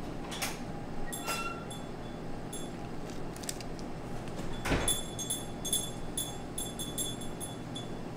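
Light metallic clinking and jingling over a steady room hum: a few clicks in the first half, a single dull knock about halfway, then a run of quick, ringing clinks.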